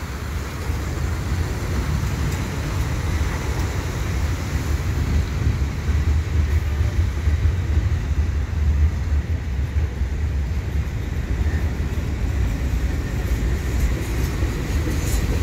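Freight cars rolling across a steel railway bridge overhead, a steady low rumble, mixed with road traffic passing underneath.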